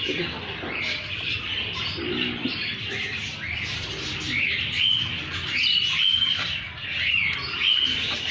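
Birds chirping over and over: short high calls, many sliding up or down in pitch, several each second.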